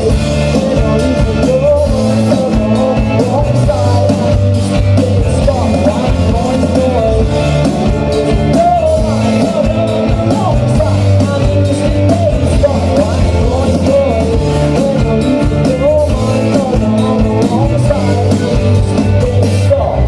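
Live rock band playing: electric guitars, bass guitar and drum kit, with a singer's voice over it. Loud and steady, as heard from among the audience.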